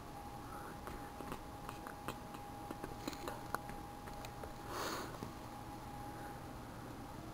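Faint scattered light clicks over a thin steady tone, with a short rush of noise about five seconds in.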